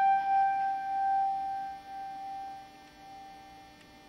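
A single high note on an upright piano ringing and dying away over about three and a half seconds, its loudness wavering as it fades, over a faint steady hum.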